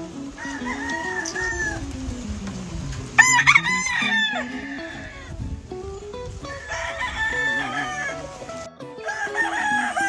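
Gamefowl roosters crowing, about four crows in turn, the loudest about three seconds in.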